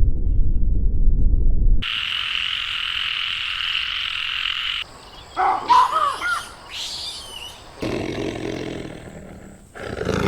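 A run of different animal calls, one after another: a loud low rumbling call that cuts off about two seconds in, a steady high hissing sound for about three seconds, then a few short chirps that swoop up and down in pitch, and near the end another low call.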